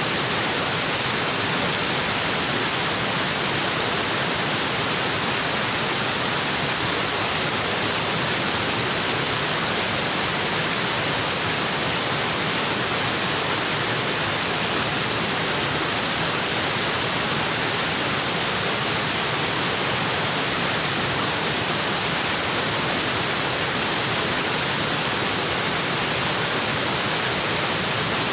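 Waterfall in a tropical forest: water pouring onto rocks, a steady even rush without change.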